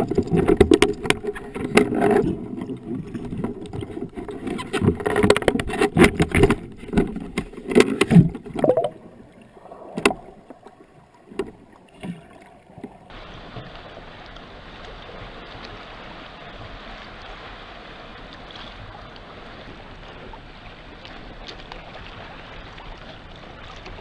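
Muffled underwater knocking and clatter from gloved hands working a speargun close to the camera housing, thinning out to a few isolated knocks. About halfway through it switches suddenly to a steady rush of wind and lapping water heard from a kayak on choppy open water.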